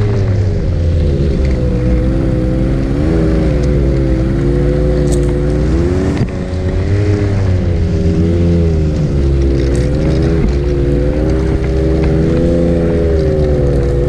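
Ski-Doo Expedition 900 ACE Turbo snowmobile's turbocharged three-cylinder four-stroke engine running under way, its pitch rising and falling every second or two as the throttle varies through deep snow, with a brief dip about six seconds in.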